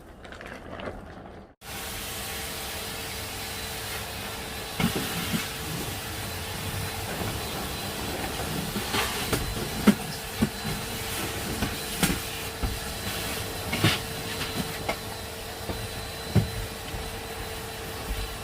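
Steady rushing noise with a constant hum and scattered clacks, like a vehicle in motion. It starts abruptly about a second and a half in.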